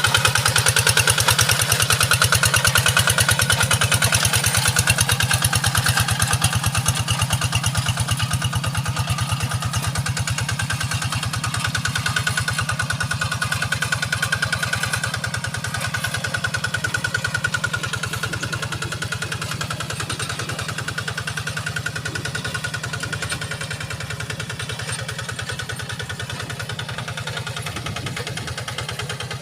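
Kubota RD85 single-cylinder diesel engine running steadily with an even firing rhythm while plowing a rice paddy, gradually getting quieter as the machine moves away.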